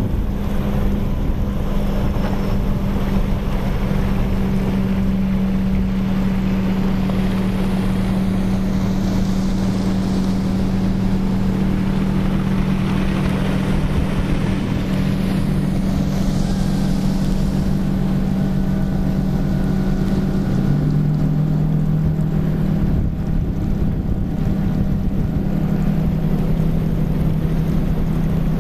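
Motorboat engines drone steadily as fishing boats run past at planing speed, with a rushing hiss of spray and wake swelling in the middle and wind on the microphone. A second, lower engine drone joins about three quarters of the way through.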